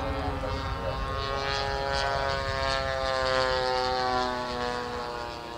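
Propeller-driven airplane engine flying past, its pitch sliding steadily down as it goes by, loudest a little past the middle and then fading.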